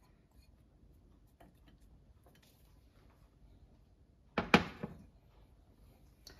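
Ceramic bowl set down on a countertop about four seconds in: a loud clunk followed by a couple of quicker knocks, after a few faint taps.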